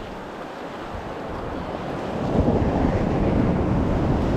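Surf washing up the beach, mixed with wind buffeting the microphone; the noise grows louder about two seconds in.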